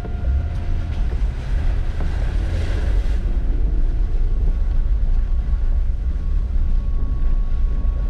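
Steady low rumble of a vehicle driving over a rough, slushy gravel road, heard from inside the cab.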